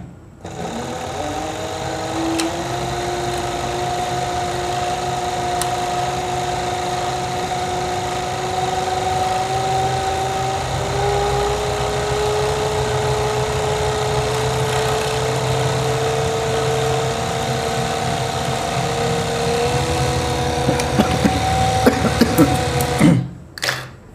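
Four-thread industrial overlock (pico) machine sewing a cutwork pico stitch along a fabric edge. It runs steadily for about 22 seconds, its hum rising slightly in pitch, with a few clicks near the end before it stops abruptly.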